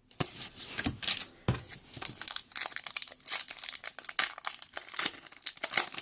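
Foil trading-card pack wrapper being torn open and crinkled by hand: a fast run of crackles and rustles that starts suddenly just after the start.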